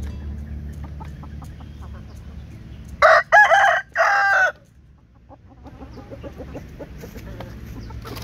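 A rooster crows once, loud, in three parts about three seconds in. Chickens cluck faintly before and after.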